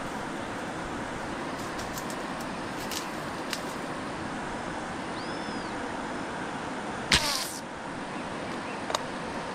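Steady rush of river rapids. About seven seconds in, a slingshot rifle is fired at a fish: a sharp snap as the bands release, then the arrow's line whizzes off the spincast reel for about half a second. A short click follows near the end.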